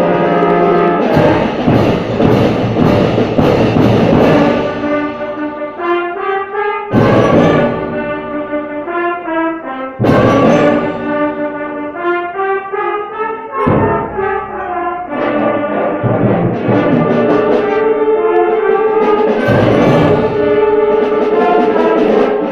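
Orchestral music led by brass, playing a moving line of held and stepping notes. It is broken several times by loud crashing hits that ring on.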